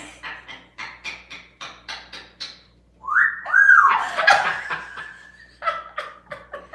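African grey parrot's mimicked laugh in short rhythmic bursts, then a loud whistle that glides up, arches over and holds a steady note for a couple of seconds, followed by more laughing.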